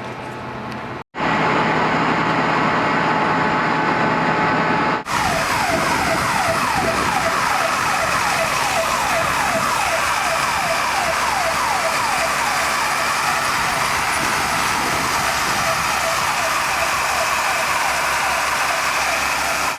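Emergency vehicle siren in fast yelp mode: a rapid run of falling wails, about three a second, starting after a cut about five seconds in. Before it there is a loud, steady rush of noise with a faint hum.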